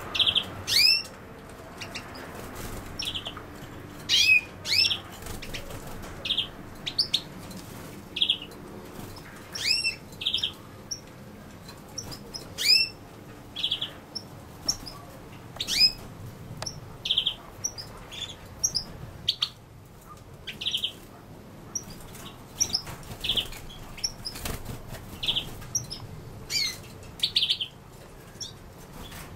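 European goldfinch calling repeatedly: short buzzy notes alternating with thin, steeply rising calls, about one every second or so.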